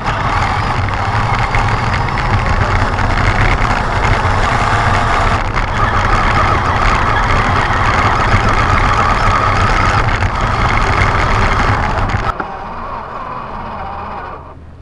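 Electric RC truck motor and gearbox whining under load while pulling a chained truck, with tyres scrabbling on gravel. About twelve seconds in, the sound cuts off suddenly to a quieter steady hum.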